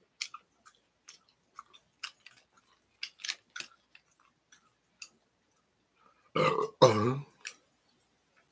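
A man chewing, with small scattered mouth clicks, then a loud, low burp about six seconds in, drawn out over about a second in two parts.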